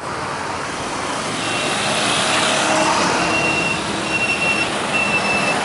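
Motorbike and road traffic noise, a steady rush without breaks. From about a second and a half in, a short high tone repeats about once a second over it.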